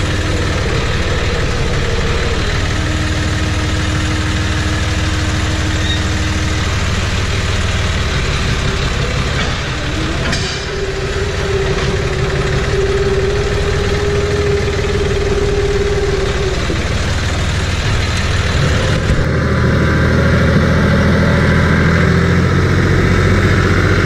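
Steady engine and road noise of a vehicle being driven, a continuous low rumble. About nineteen seconds in, the sound shifts lower and slightly louder.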